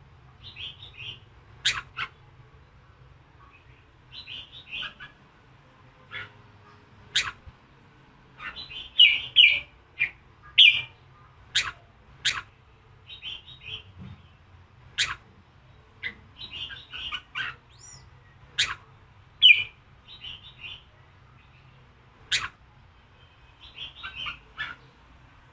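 Red-whiskered bulbul singing: sharp single notes alternate with short, quick chattering phrases at irregular intervals. It is a fierce, fired-up male song of the kind played to provoke other bulbuls into singing. A faint low hum runs underneath.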